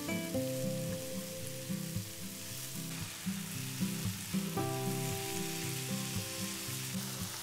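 Chopped mushrooms with onion and carrot sizzling in oil in a non-stick frying pan as a spatula stirs them, fried until their liquid cooks off. Background music plays along with it.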